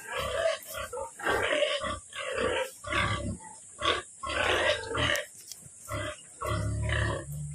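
Pigs grunting in short, repeated bursts, about one or two a second, with a deeper, heavier run of grunts near the end, as a boar is brought to a sow in standing heat for mating.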